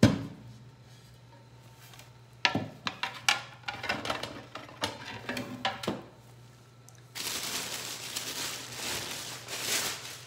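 A sharp knock as a plastic tray is set down on a table. A run of light clinks and knocks follows as dishes are handled and moved, then a few seconds of rustling near the end.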